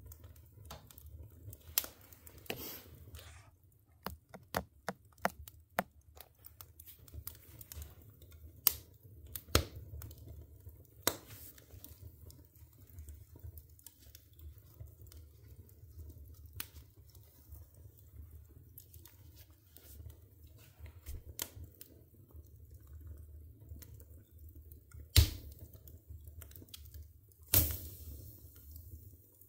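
Split firewood burning in a wood stove's open firebox, crackling with irregular snaps and pops. Two loud pops come near the end, the second throwing a spray of sparks.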